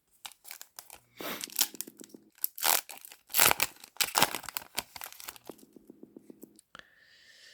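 Foil trading-card booster pack being torn open, its wrapper crinkling with irregular tearing and crackling.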